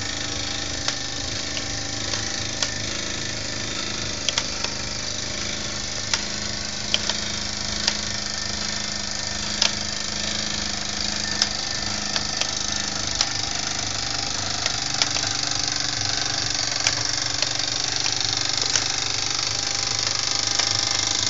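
Mamod toy steam roller's small steam engine running steadily, driving line shafts of Mamod workshop models through spring belts and a Meccano sprocket and chain. A steady whirr of the turning shafts and pulleys, with sharp clicks every second or two.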